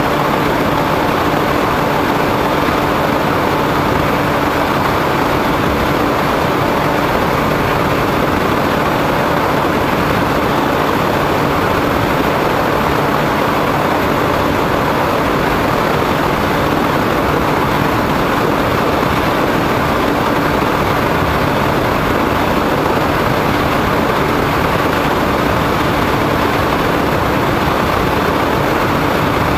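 Motor and propeller of a foam RC airplane in steady cruise, picked up by its onboard camera: a loud, even rushing noise with a steady hum at constant pitch.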